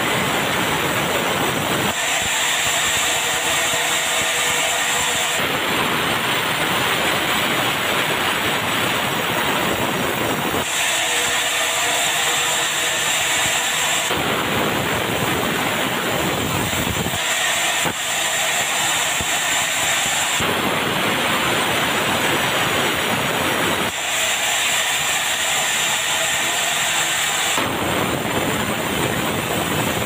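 Sawmill band saw resawing red meranti boards, running loud and continuously. Its sound shifts every few seconds between a fuller, deeper noise and a thinner one as the cuts go on.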